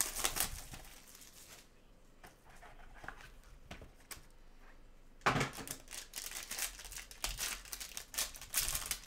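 Silver foil wrapper of a Topps Tier One card pack being torn open and crinkled: a sharp rip about five seconds in, then several seconds of dense crinkling. A shorter rustle at the start as the box is pulled open.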